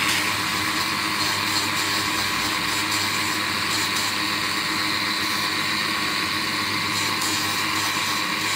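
Grinding wheel running steadily with the steel of a pinion gear tooth held against it: an even grinding hiss over a steady motor hum, as the repaired tooth is ground to shape.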